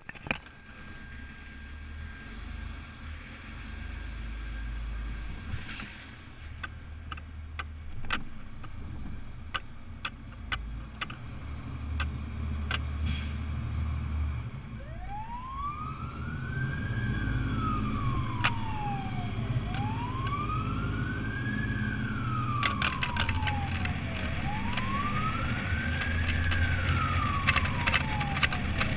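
Fire engine's diesel engine running as the truck pulls out and gets under way, with scattered rattles and clicks. About halfway through its siren starts a wail, sweeping up and down about every four and a half seconds and growing louder toward the end.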